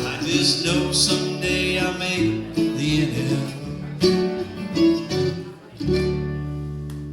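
Acoustic country-bluegrass band of guitar, mandolin and upright bass playing the instrumental ending of a song, with picked runs over a walking bass. They close on a final chord about six seconds in that rings and fades.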